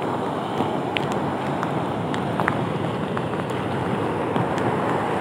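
Sea water washing and churning in the surf, with wind buffeting the microphone and a few faint ticks.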